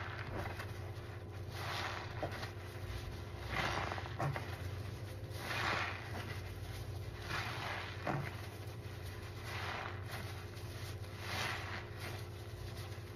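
Soapy sponges squeezed under a thick heap of foam: wet squelching swells about every two seconds, with a few crackling ticks, over a steady low hum.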